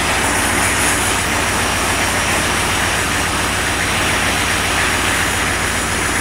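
Handheld propane torch burning with a steady hiss while it is played over a sheet-metal panel to warm it before painting, with an engine idling as a low steady hum underneath.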